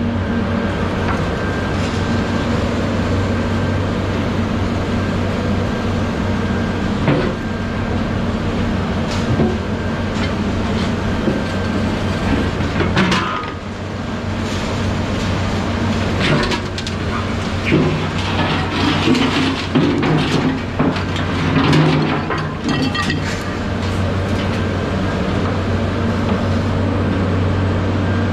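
An engine running steadily, with repeated clanks and rattles of scrap metal being handled, busiest in the middle stretch.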